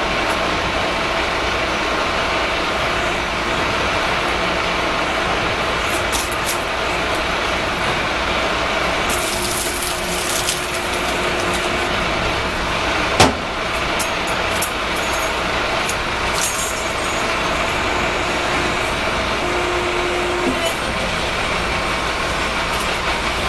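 Hydraulic power unit of an MW 808II motor-splitting machine (electric motor driving a hydraulic pump) running steadily as the stator-splitting chuck works. A steady higher tone comes in twice, metal parts clink, and there is one sharp crack a little past halfway.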